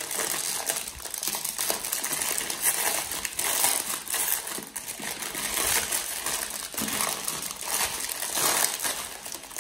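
Clear plastic wrapping crinkling and crackling without a break as hands unwrap a faux succulent from it.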